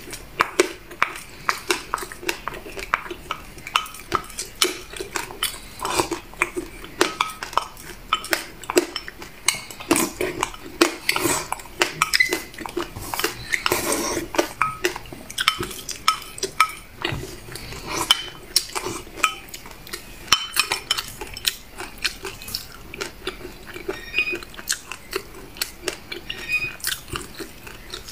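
A metal spoon clinking and scraping against a small glass bowl as black sesame and buckwheat is scooped up and eaten, many quick taps and scrapes in a row, thinning out near the end.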